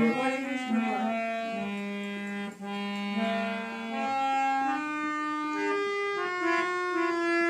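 Harmonium playing a slow melody in long, steady held notes, with a low note sustained underneath for the first half.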